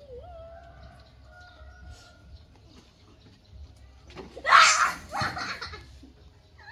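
Baby macaque screeching in two harsh bursts about four and a half seconds in, after a faint thin drawn-out whine.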